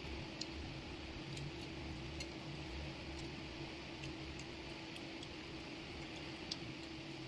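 Quiet mukbang eating by hand: scattered small clicks and smacks of chewing and fingers working rice and pork on plates, over a steady low hum and hiss.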